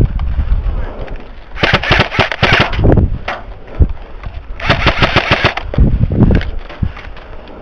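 Airsoft electric rifle firing two full-auto bursts of about a second each, one about a second and a half in and one about four and a half seconds in, each a rapid rattle of shots.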